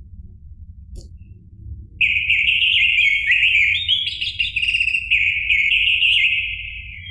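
Orange-headed thrush (anis merah) singing one long, rapid, varied warbling phrase that starts about two seconds in and fades out near the end, over a faint low background rumble.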